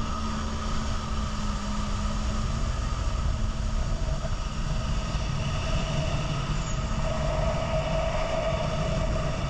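Jet ski engine running at speed with the rush of water and wind; a higher-pitched whine grows in the second half as it pulls away.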